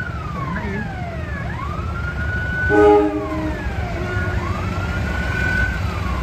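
A wailing siren that rises, holds and falls about every two and a half seconds, over a steady low rumble. About three seconds in, a short horn blast of several tones at once is the loudest sound.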